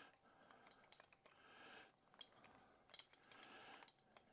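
Faint, irregular small metallic clicks and scraping as a wrench is turned to back the stuck adapter screw out of a TaylorMade driver head, which feels tight.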